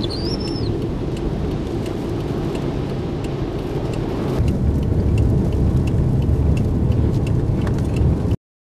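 Strong storm wind buffeting the microphone: a steady low rumble that grows louder about halfway through, with a brief high squeak at the very start. The sound cuts off abruptly just before the end.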